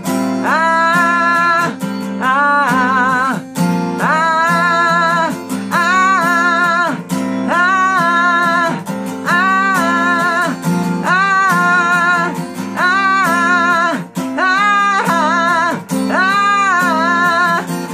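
Acoustic guitar strumming under a singing voice: a series of short sung phrases, each about a second long, with held notes carrying vibrato.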